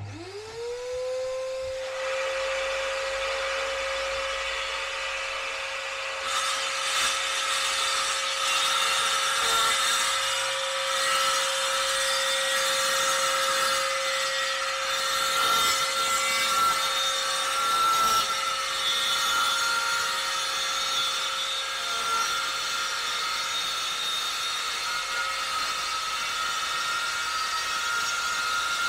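Cordless Makita circular saw, with a dust-extraction vacuum hose attached, spinning up to a steady whine and then cutting a long straight pass through a white-faced kitchen worktop board. The cut gets louder about six seconds in and runs on steadily.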